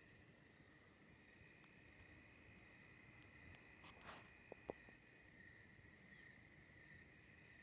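Faint night insects, crickets among them, trilling steadily with a fainter chirp repeating about twice a second. A short rustle just past the middle, then two sharp clicks.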